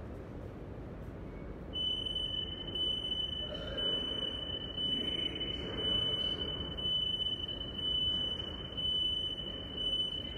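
Metro station platform ambience, a steady wash of noise. About two seconds in, a steady high-pitched electronic whine starts and holds on.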